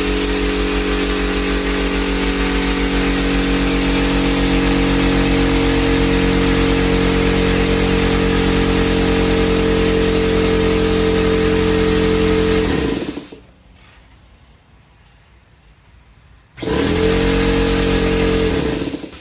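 Husky air compressor's motor and pump running steadily with an even low pulsing, on a test run after its cracked copper line was replaced with tubing. About 13 seconds in it shuts off and winds down with falling pitch. It starts again about three and a half seconds later and winds down again near the end.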